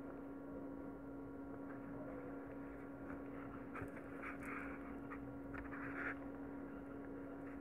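Faint scratching and rustling of a needle and nylon thread being worked through small beads, a few short rustles in the middle, over a steady low electrical hum.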